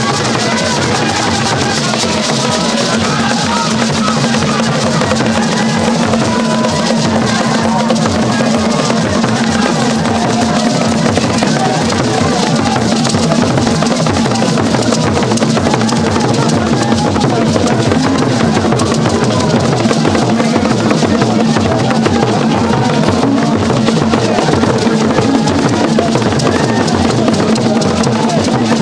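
Music of many drums beating a fast, dense rhythm, with voices singing over it and a steady held note underneath.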